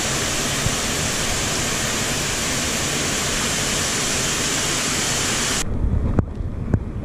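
Rushing water of a mountain torrent, a steady hiss. About five and a half seconds in, the sound suddenly turns muffled and low, heard from underwater, with a few sharp knocks.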